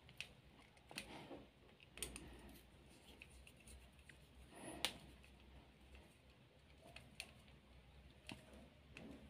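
Faint clicks and scrapes of a small screwdriver turning the screw terminals on a relay board, a handful of them spread over a near-silent background, the clearest nearly five seconds in.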